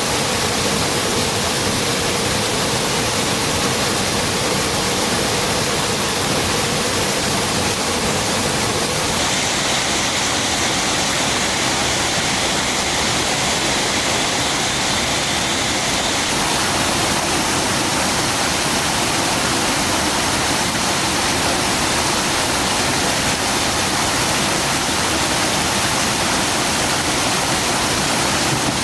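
Water rushing down a waterfall: a steady, even noise that changes slightly in tone about nine seconds in.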